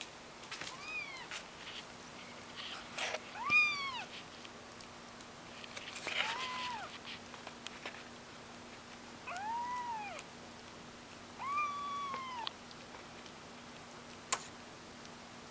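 Young kitten mewing: five high-pitched mews a few seconds apart, each rising then falling in pitch. A single sharp click near the end.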